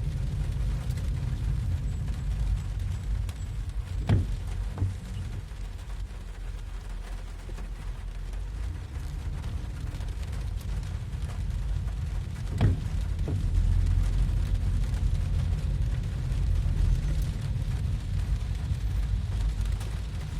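Rain recorded outdoors: a steady low rumble under a faint, even hiss. Two short, sharper sounds stand out, about four and twelve and a half seconds in.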